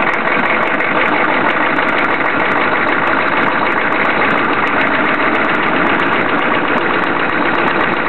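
1993 Chevy 6.5-liter turbo-diesel V8 running steadily, held a little above idle at the speed where it runs rough and shakes.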